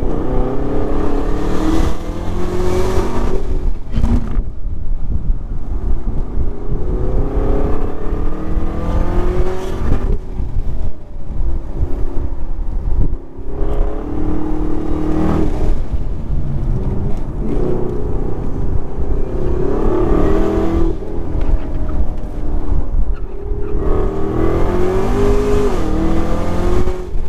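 Camaro ZL1's supercharged 6.2-litre LT4 V8 driven hard around a race track, its pitch climbing under acceleration and dropping away several times.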